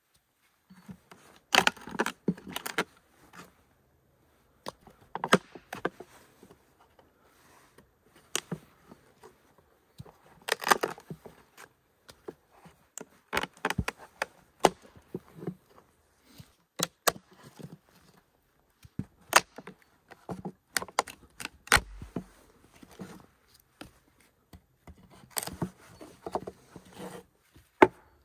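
Irregular sharp blows of a hatchet on a log slab scored into a grid by chainsaw cuts, splitting out the small square wooden blocks; some blows come in quick clusters with short pauses between.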